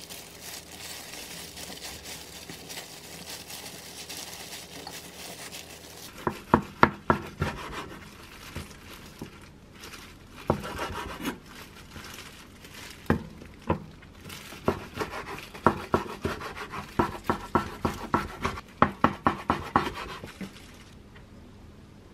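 Plastic food-prep gloves crinkling as hands press and roll gimbap fillings on seaweed. After about six seconds a knife slices the seaweed-wrapped gimbap roll on a wooden cutting board, in several runs of sharp knocks as the blade cuts through and meets the board.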